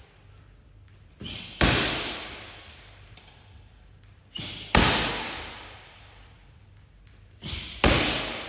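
Switch kicks landing on a hanging heavy bag, three times about three seconds apart. Each is a loud slap that echoes off the bare room, with a lighter thud about half a second before it.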